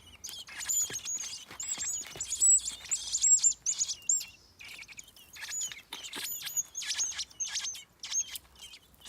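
Nestling birds begging to be fed: rapid, high-pitched chirping in busy clusters, several calling at once, with brief lulls.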